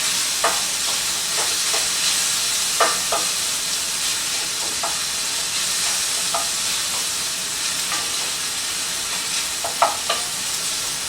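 Onions and bell peppers sizzling steadily as they fry in a pan, with scattered light clicks and taps, two of the sharpest close together near the end.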